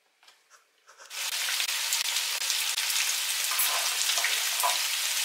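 After a second of a few faint soft taps, a steady hiss starts suddenly about a second in. It is flour-dusted beef chunks sizzling in hot oil in a frying pan, being browned.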